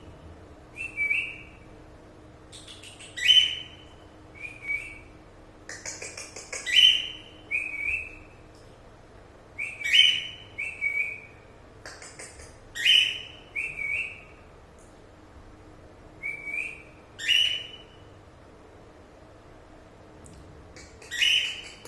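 Pet cockatiels calling: short, shrill whistled chirps, mostly in pairs of a loud call and a shorter one, repeating about every three seconds.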